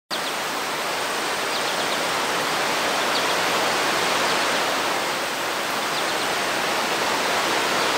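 Rushing whitewater: a steady, full hiss of fast-flowing water.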